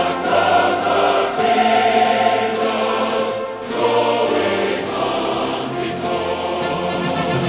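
A large mixed choir singing a hymn in full voice, with a brief breath between phrases about halfway through.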